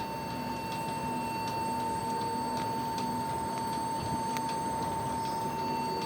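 Lenovo G570 laptop giving its startup alarm during boot: one continuous, unbroken high beep, with a few faint clicks over it. The beep persists with the keyboard connector cleaned and reseated, which the technician takes as the sign of a faulty keyboard that needs replacing.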